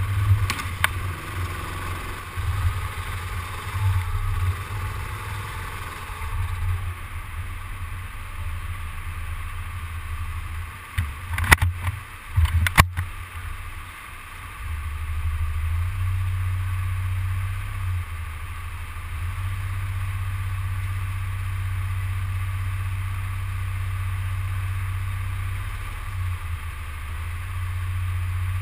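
Go-kart heard from an on-board helmet camera: a muffled, uneven low rumble while the kart is moving, broken by a few sharp knocks about halfway through. The rumble then settles into a steady low hum as the kart sits stopped in the queue.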